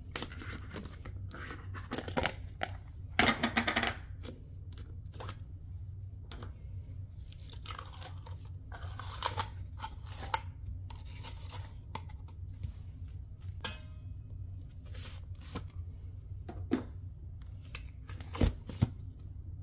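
Slime being squeezed out of plastic tubs into a stainless steel bowl: irregular wet crackling, squelching and tearing sounds with plastic-container crinkles, loudest a few seconds in and in two sharp pops near the end. A steady low hum runs underneath.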